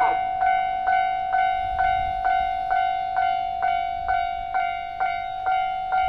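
Japanese railway level-crossing alarm: the electronic crossing bell sounding its repeated "kan-kan" strike about twice a second, each strike leaving a ringing tone that carries on between strikes.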